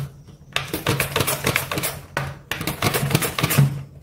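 Carrot being grated on a hand-held plastic julienne grater: quick scraping strokes in rapid succession, with a short pause just after the start and another about halfway through.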